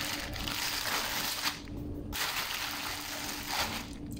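Rustling and crinkling as a round of Arabic flatbread (khubz) is handled and pulled apart, in two stretches with a short pause about a second and a half in. A faint steady hum runs underneath.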